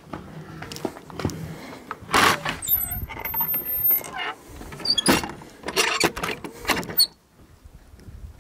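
A weathered wooden plank gate being moved: a run of knocks and rattles, with a clattering stretch about two seconds in and another from about five to seven seconds in, and a brief high squeak between them. The sound cuts off abruptly just after seven seconds.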